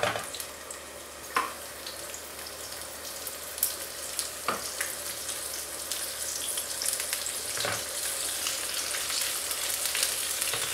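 Cornmeal-dredged fish frying in shallow oil in a frying pan: a steady sizzle that grows louder as more fish go in. Three soft knocks are spread through it.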